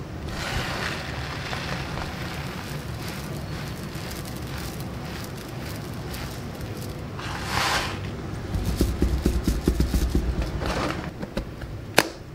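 Dry rice grains pouring from a bag into a plastic storage container: a steady hiss of falling grains, with a louder rush past the middle. Uneven rattling follows, and one sharp click near the end as the container's lid is snapped on.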